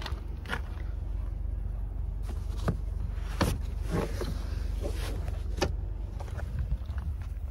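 Rear seat back of a car being unlatched and folded down: a handful of sharp clicks and knocks from the latch and seat, the loudest about halfway through, over a steady low rumble.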